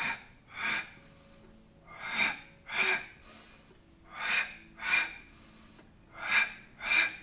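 A man's short, forceful exhaled breaths, in pairs: four pairs about two seconds apart. Each pair is paced to the double pull of the knee in a Pilates single leg stretch.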